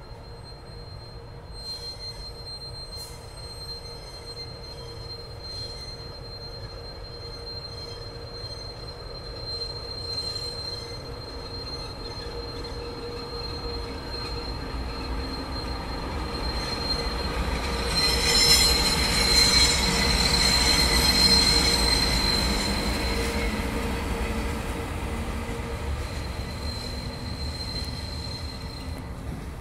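FS E652 electric locomotive starting from standstill with a loaded car-carrier freight train, running slowly past. A steady high-pitched squeal and a lower steady hum sound over the train's rumble, swelling to their loudest a little past the middle and then easing.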